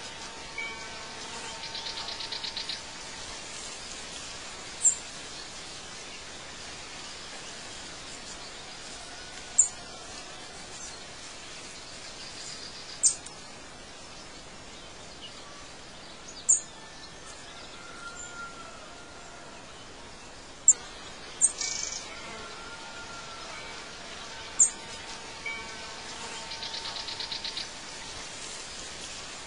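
Birds chirping over a steady outdoor hiss: short, sharp high chirps every few seconds, with a fast high trill twice and a few soft whistles.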